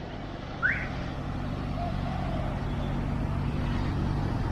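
Motorcycle engine running steadily under way, slowly growing louder, with one short rising chirp a little under a second in.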